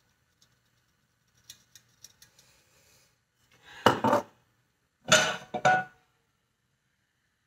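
A few light clicks, then two loud clatters: a nonstick skillet knocking and scraping on a gas stove's cast-iron grate as it is picked up and tilted to spread the oil.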